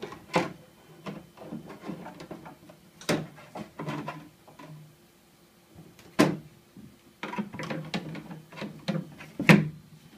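Hard plastic cover pieces being handled and pressed onto an elliptical trainer's flywheel housing: about four sharp plastic knocks and clacks, the loudest near the end, with quieter handling rattle between.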